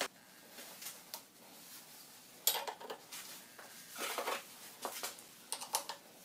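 Light clicks, taps and rattles of a bar-end mirror being handled and fitted to the end of a motorcycle handlebar, with the sharpest knocks about two and a half and four seconds in.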